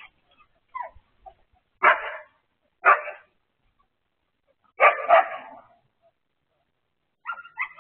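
Dogs barking and yipping in excitement as they greet each other: single sharp barks about a second apart, a longer double burst about five seconds in, and more barking starting near the end.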